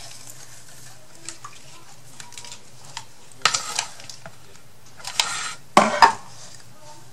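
Craft materials and tools being handled on a tabletop: a few short bursts of rustling and clattering, the loudest about six seconds in.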